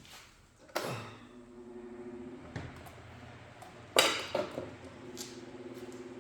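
Two sharp knocks, a hard object set down or struck: one a little under a second in and a louder one about four seconds in. A low steady hum comes in after the first knock and keeps going.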